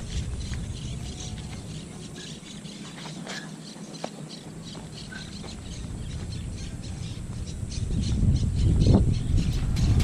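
Open-air riverbank ambience: a low rumble of wind on the microphone that eases off a few seconds in and swells again near the end, with scattered short high chirps and clicks.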